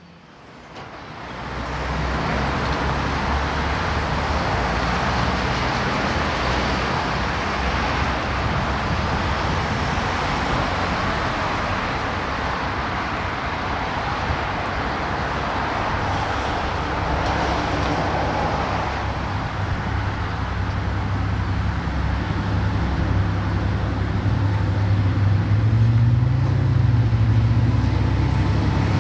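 Diesel locomotive running with a steady low engine hum over a broad rumble, growing louder as it draws nearer. A thin high whine joins in about two-thirds of the way through.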